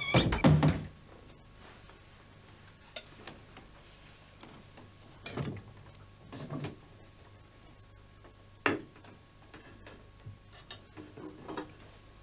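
Spoons clinking and scraping on plates now and then during a quiet meal: a louder clatter at the start, then a few short, separate clicks over a faint low hum.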